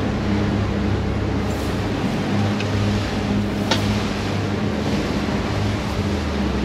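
Boat engine running steadily at trolling speed, a low hum under a wide rush of wind and water. One sharp click a little past the middle.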